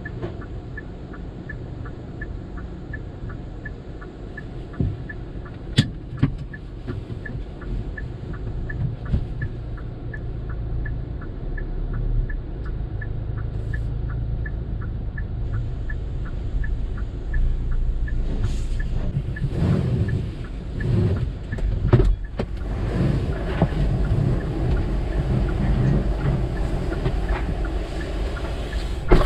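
Car wash equipment and the waiting car's engine heard from inside the car's cabin: a steady low rumble with a regular light ticking. Over the second half louder, uneven rushing noise with a few sharp knocks builds up.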